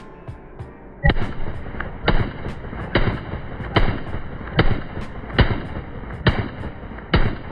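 AR-15 rifle in 5.56 firing single shots at a steady cadence, about one shot a second, starting about a second in, with fainter pops between the shots.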